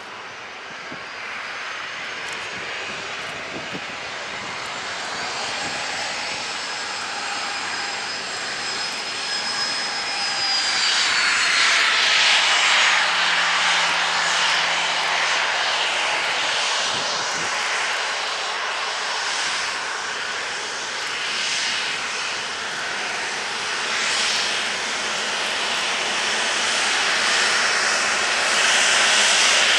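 Boeing 737-800's CFM56-7 turbofan engines whining at taxi power, growing louder as the airliner taxis closer. A high whine slides down in pitch about ten seconds in.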